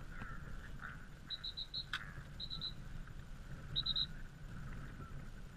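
Outdoor ambience of low wind rumble on the microphone with faint bird calls: short high chirps in quick groups of three or four, repeated several times. A single sharp click about two seconds in.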